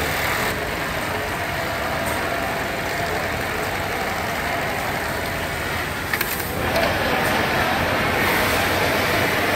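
Industrial computer-controlled pattern sewing machine stitching a decorative pattern into denim at a fast, steady run, with a few clicks about six seconds in.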